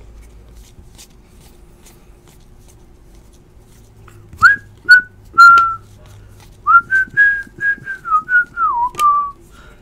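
A person whistling a short tune: three notes, a pause, then a quicker run of about ten notes that dips lower near the end.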